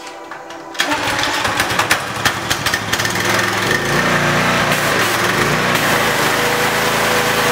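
Small gasoline engine on a pressure washer starting about a second in, running unevenly for a couple of seconds and then settling into a steady run. High-pressure water spray hisses against a truck's fender well in the second half.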